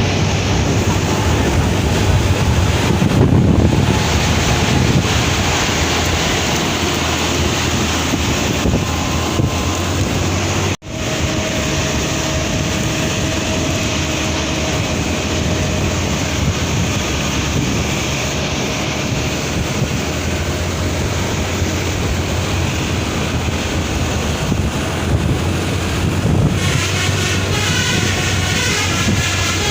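Steady rushing noise of a moving road vehicle with wind buffeting the microphone. The sound drops out for an instant about eleven seconds in, and a wavering, warbling higher sound comes in near the end.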